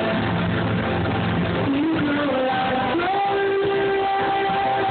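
Live band playing: a high voice holds long notes over bass and guitar, stepping up in pitch about three seconds in. Muffled, poor-quality audience recording with the top end cut off.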